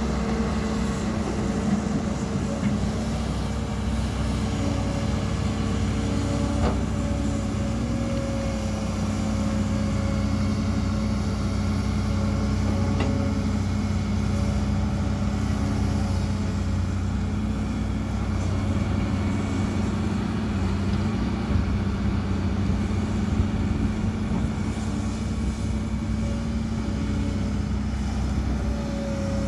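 Diesel engines of two crawler excavators, a Kobelco SK200 and a Hitachi Zaxis 210LCH, running steadily as they dig, with a steady engine hum. A couple of faint knocks come through, and the engine note shifts slightly as the machines work.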